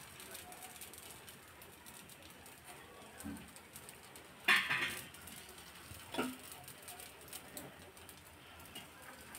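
Quiet kitchen handling at an appe pan as stuffing balls are placed into the batter, with a short clatter about four and a half seconds in and a smaller knock a little after six seconds.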